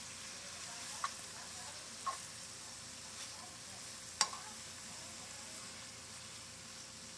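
Sliced bell peppers and onions sizzling steadily in oil in a nonstick skillet as they are stirred with a metal spatula, which clicks against the pan three times, loudest about four seconds in.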